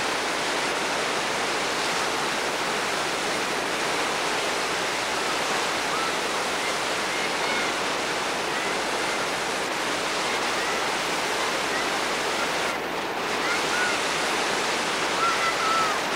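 Steady roar of whitewater: a large river pouring through a boulder-strewn Class V rapid.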